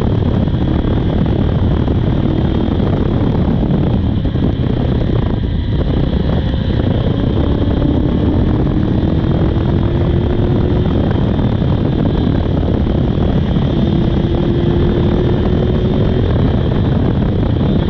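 Honda CB400 inline-four motorcycle being ridden at speed, heard under a heavy rush of wind over the microphone. The engine note rises slowly twice as the bike accelerates, about a third of the way in and again near the end.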